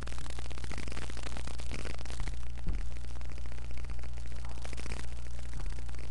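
Steady hiss and low electrical hum from a webcam's built-in microphone, with a few faint knocks.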